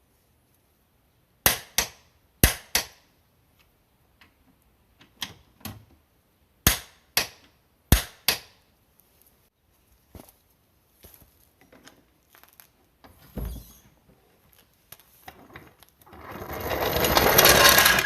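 Sharp knocks and clanks of tools being worked on metal, mostly in quick pairs, then fainter scattered clicks. A rushing noise builds up over the last two seconds.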